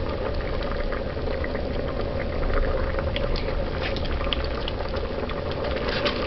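A thick bean stew (stew peas) boiling hard in an open aluminium pot on high heat, a steady bubbling full of small irregular pops as it reduces and thickens.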